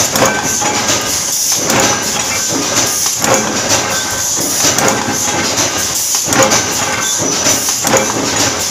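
Loud, steady din of sheet-metal shop machinery, with irregular metallic knocks and clanks about every second or so.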